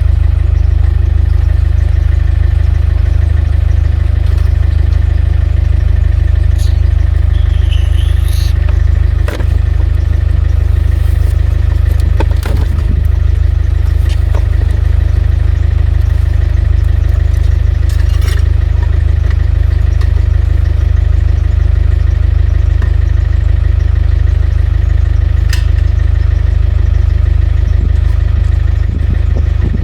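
A car's engine and road noise making a steady low drone. There are a few short knocks, and a brief rising squeak about eight seconds in.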